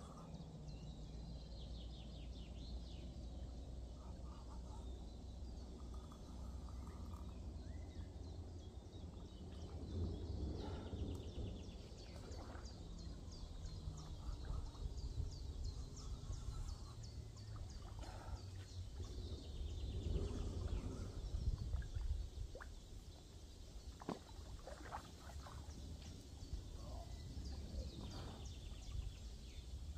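Riverbank ambience while a hooked carp is played: small birds chirping over a steady low rumble, with louder noisy stretches about ten and twenty seconds in.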